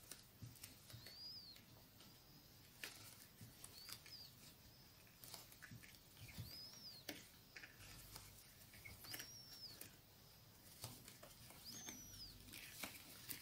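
Near silence with faint crochet work: the crochet hook pulling yarn through stitches, giving soft ticks and about five brief, high squeaks a few seconds apart.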